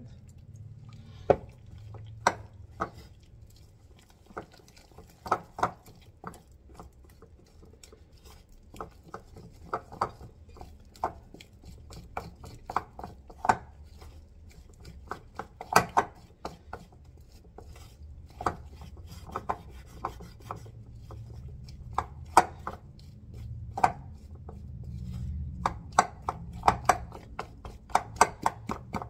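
A spoon beating a thick nokedli dumpling dough in a mixing bowl, knocking and scraping against the bowl at an uneven pace.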